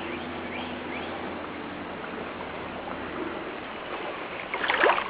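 Steady rush of the flooded Brazos River, with a few faint bird chirps over it.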